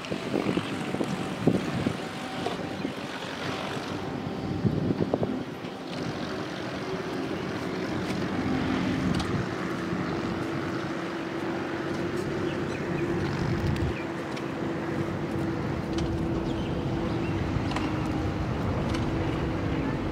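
A steady motor drone holding one pitch, clearest from about a third of the way in. In the first few seconds there is uneven buffeting of wind noise on the microphone.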